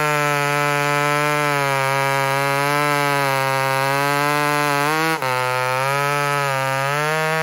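Two-stroke chainsaw running at full throttle while cutting through very hard wood, its pitch wavering slightly under load, with a brief dip about five seconds in.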